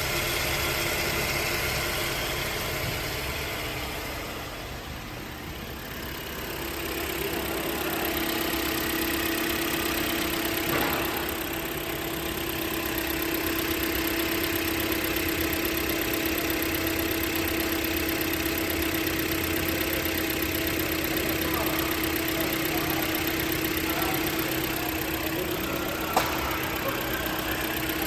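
Toyota RAV4's four-cylinder engine idling steadily, a steady hum joining in a few seconds in; one sharp click near the end.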